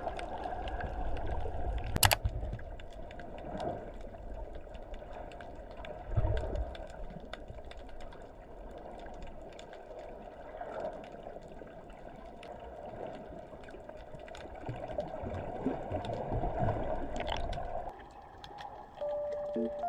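Water gurgling and sloshing in a muffled, continuous churn, with scattered small clicks and a sharp knock about two seconds in.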